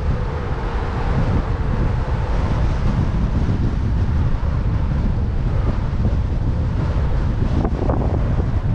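Strong wind buffeting the microphone of a bicycle-mounted camera: a constant, heavy low rumble of wind noise.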